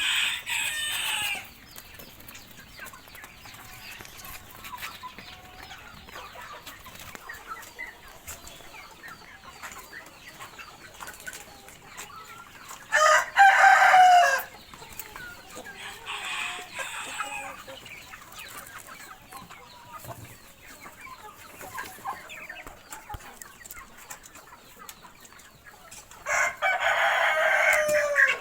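Roosters crowing four times, the loudest about halfway through, over a flock of chickens clucking steadily.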